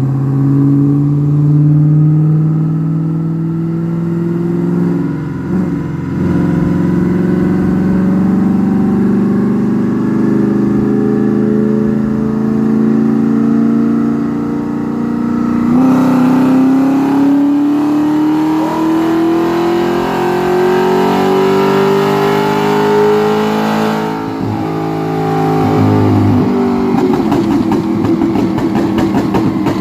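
Car engine on a chassis dynamometer, pulling hard under load with its pitch rising slowly, with abrupt changes in pitch about five and sixteen seconds in. Near the end the revs fall away, with a rapid fluttering.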